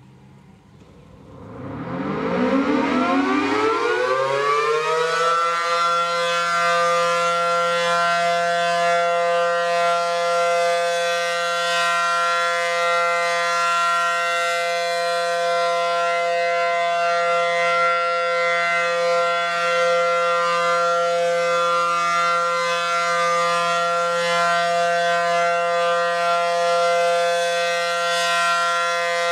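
Federal Signal 500 dual-tone outdoor warning siren winding up from about a second in, its pitch rising until it levels off at about five seconds, then holding a steady, loud two-note chord during its routine test.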